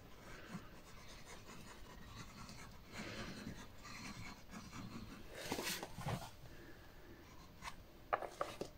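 Glue being drawn along a pencil line on paper: faint, scratchy rubbing of the applicator on the paper in a few strokes, with a few small clicks near the end.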